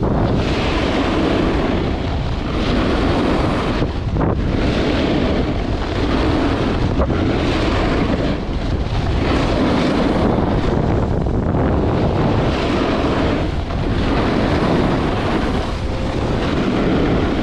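Loud, steady rushing of wind buffeting the microphone, mixed with the hiss and scrape of a snowboard carving over snow.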